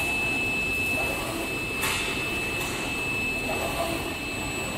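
UV flatbed inkjet printer with Toshiba CE4 print heads printing, its carriage shuttling back and forth over the bed with a steady mechanical running noise and a steady high whine, and a brief swish about two seconds in.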